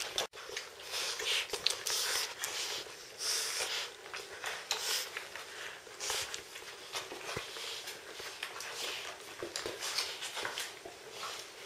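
Czechoslovakian wolfdog puppies suckling from their standing mother: many short, irregular smacks and rustles.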